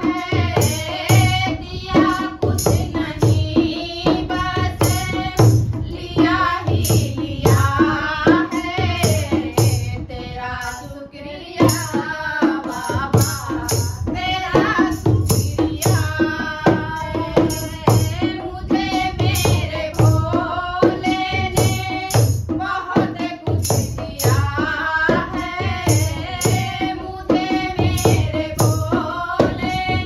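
Two women singing a Hindi devotional bhajan in unison. They are accompanied by a dholak drum beaten in a steady rhythm and a plastic kartal jingle clapper clashing on the beat. About a third of the way in, the singing drops away for a moment before picking up again.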